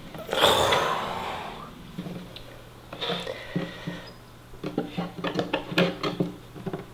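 Knocks and bumps on the Cerwin-Vega LA110 subwoofer cabinet as the stuck plate amplifier is forced out from the inside by hand: a loud rush of noise near the start, then a fast string of short knocks in the second half.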